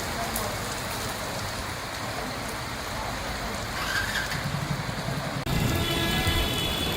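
Heavy rain falling steadily, an even hiss. About five and a half seconds in, the sound changes abruptly to a louder low rumble with a steady high-pitched tone over it.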